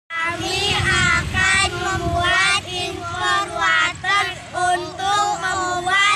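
A child singing in a high voice, a quick, unbroken run of sung syllables on fairly level notes.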